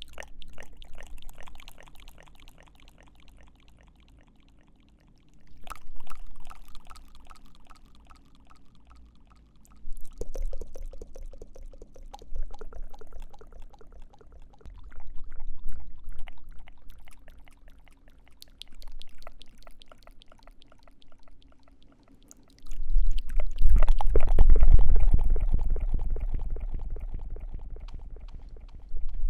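Close-miked ASMR mouth sounds: wet clicks and smacks in short bursts every few seconds. About three-quarters of the way through comes a louder, longer breath right at the microphone, which slowly fades.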